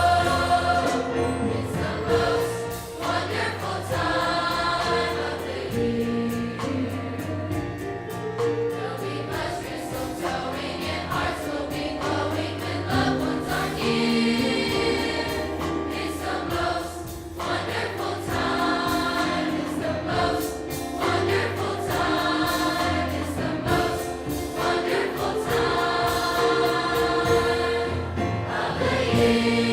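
A large high school choir singing a Christmas song in harmony, with sustained notes and steady low notes underneath.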